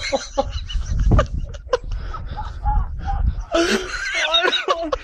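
People laughing, with loud, high, honking laughs from about three and a half seconds in. Under the first half runs a low rumble, with a few sharp knocks.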